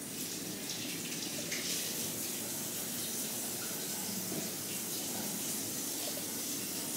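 A steady rushing hiss that holds an even level, without breaks or rhythm.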